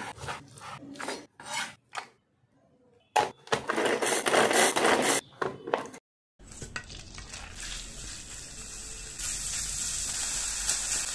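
A knife cutting raw chicken breast on a wooden board with sharp knocks, then a few seconds of loud whirring as a small food chopper minces the chicken. After a short pause comes a steady sizzle of minced chicken frying in butter on a flat pan, stirred with a wooden spatula; the sizzle grows louder near the end.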